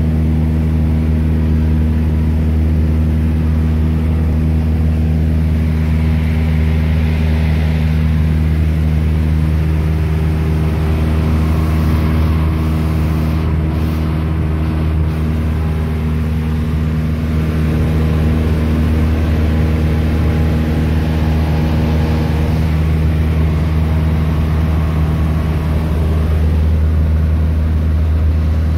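Light aircraft's propeller engine droning steadily in flight, heard inside the cabin.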